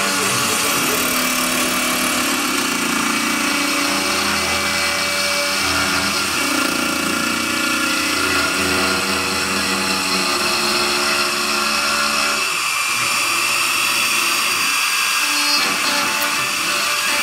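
CNC router spindle running at a steady high whine while its small bit mills a carved relief into wood. The lower sound of the cut shifts about twelve seconds in.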